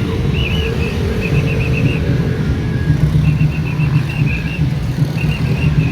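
A motor vehicle engine running with a steady low rumble, with short high chirping tones repeating in small groups over it.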